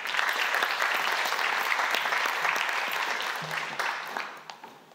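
Audience applauding: the clapping starts abruptly and dies away near the end.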